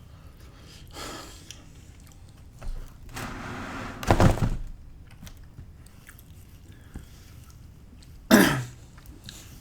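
A man clearing his throat and coughing: two loud short bursts about four seconds apart, with softer mouth noises between.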